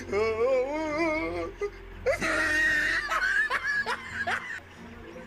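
People laughing loudly in high-pitched bursts: a wavering laugh for the first second and a half, then a louder run of shrieking laughter broken into short pulses that dies down near the end.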